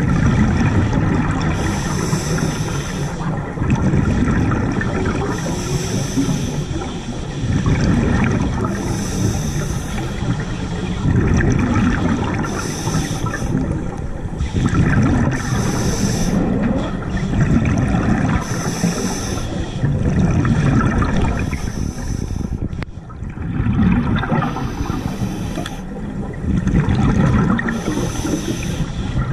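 A diver breathing underwater through diving breathing gear: a low bubbling rumble alternates with a higher hiss, one breath about every three seconds.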